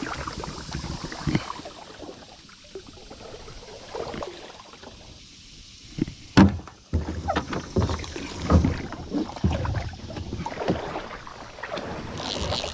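Canoe being paddled: the paddle dips and swishes through the water, with irregular hollow knocks against the hull. The loudest is a sharp knock about six seconds in, followed by a run of thumps.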